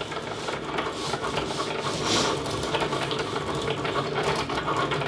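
Cricut Maker cutting machine running steadily, its carriage motors whirring with small ticks as the blade cuts a mat of printed sticker vinyl.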